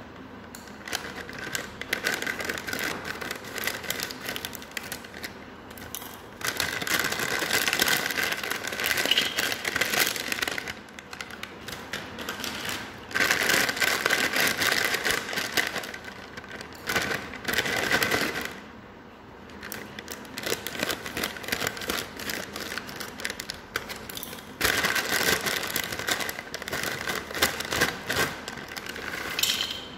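Plastic snack packet (Balaji Chataka Pataka) crinkling and rustling as it is handled and its puffed snacks are tipped out into a steel bowl. Dense crackling throughout, with three louder spells.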